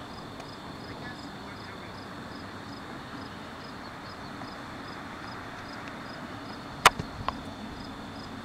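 Steady outdoor background noise with a faint high ticking about three times a second. A sharp click about seven seconds in, the loudest sound, is followed by two lighter clicks.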